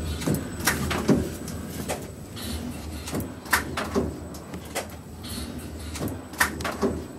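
Filter-media pleating machine running: a steady low hum with repeated sharp clacks and knocks from its pleating mechanism, roughly two a second and unevenly spaced.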